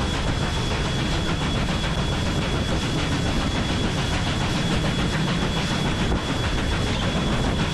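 NSW 59 class steam locomotive 5917 working hard as it hauls a passenger train: a steady heavy rushing and rumble, with a faint steady high whine over it.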